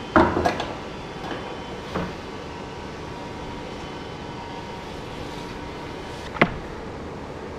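A quick cluster of loud knocks and clatter, a lighter knock about two seconds in, and a sharp click near the end, over a steady engine hum: the sounds of lumber being loaded into a pickup bed.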